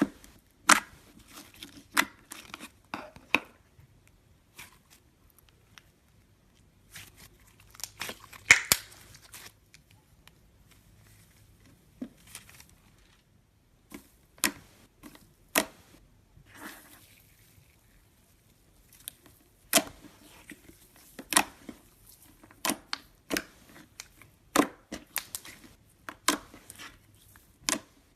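Gold foil slime being squeezed, stretched and poked by hand, giving irregular sharp clicks and pops in clusters with short quiet gaps.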